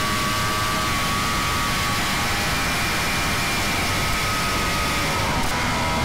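Catamaran powerboat running flat out at around 90 mph: a steady high engine whine over heavy wind and water rush. The whine drops slightly in pitch about five seconds in as the boat eases off.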